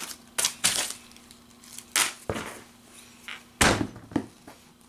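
Paper sewing pattern pieces being handled, in a handful of short rustles, with a couple of duller knocks among them.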